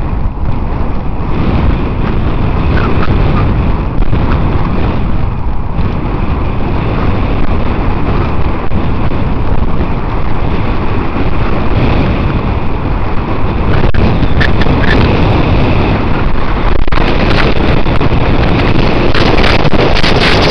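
Wind buffeting the microphone of a camera on a bicycle speeding downhill: a loud, steady rush of noise that grows a little louder toward the end.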